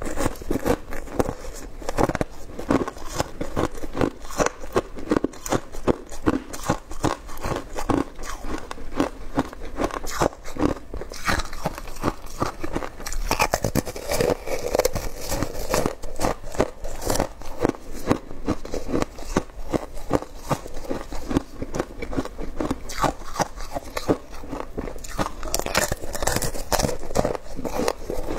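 Shaved ice being bitten and chewed: a dense, continuous run of crisp crunches and crackles.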